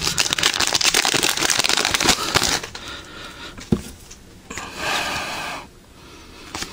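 A trading-card pack's wrapper crinkling and tearing open for the first two and a half seconds or so. Then the cards are handled: a single tap, and a short swish of cards sliding against each other.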